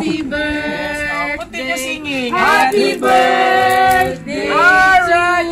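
Singing, with long held notes joined by slides up and down in pitch.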